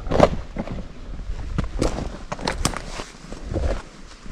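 Footsteps on rocky ground strewn with dry sticks and pine litter, making irregular crunches and snaps, with low rumble from wind on the microphone.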